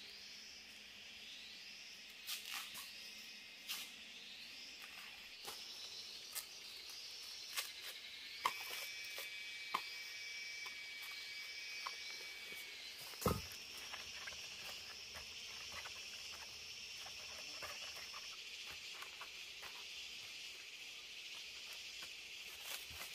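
High, steady chirring of forest insects, with a short rising call repeated about once a second for the first twelve seconds and a held high tone for a few seconds in the middle. Scattered sharp clicks and snaps sound over it, the loudest a sharp knock about 13 seconds in.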